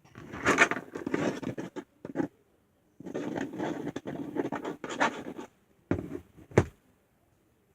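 Glue-and-laundry-detergent slime being mixed by hand, scraping and rustling in two stretches as extra detergent is worked in to stop it sticking, with a sharp knock near the end.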